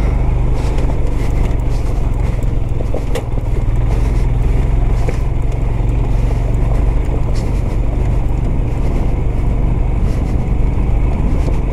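A Royal Enfield Himalayan's single-cylinder engine runs steadily as the motorcycle rides over a rough stone track. Wind buffets the rider's camera, and scattered knocks and rattles come from the bike jolting over the rocks.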